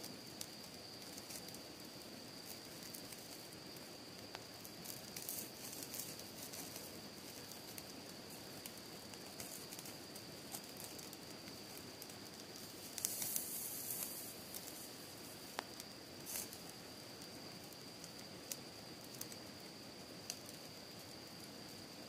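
Wood and charcoal fire in a small folding fire pit crackling, with scattered sharp pops over a steady low hiss. About thirteen seconds in there is a brief louder burst of noise as the grilling meat is moved with tongs.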